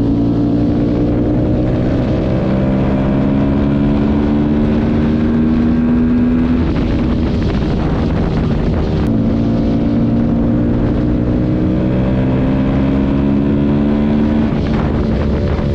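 Yamaha sport bike's engine pulling under acceleration, its revs climbing steadily, dropping with an upshift about seven seconds in and again near the end. Wind rushes over the microphone throughout.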